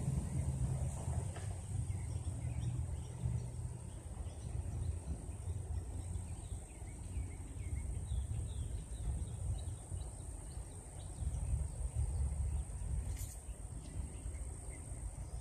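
Outdoor ambience: a steady high insect buzz with scattered bird chirps over a low rumble, and a couple of short clicks near the end.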